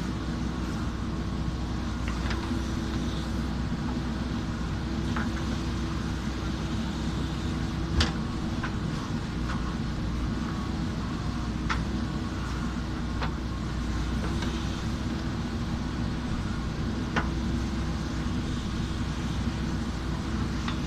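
JCB backhoe loader's diesel engine running steadily at working speed, with a few sharp knocks over it, the loudest about eight seconds in.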